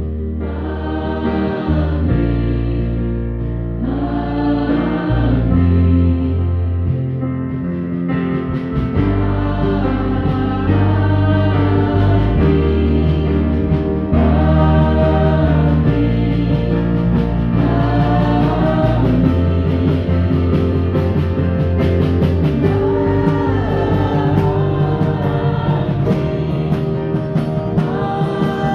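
Christian worship song: voices singing over sustained keyboard chords and bass, with light percussion ticks coming in about a third of the way through.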